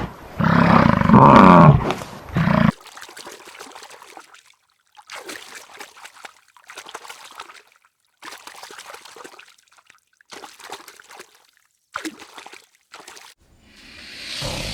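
A large farm animal gives one loud, drawn-out call, ending about two seconds in. It is followed by a series of short, faint rustling noises about a second apart, and a hiss that swells and fades near the end.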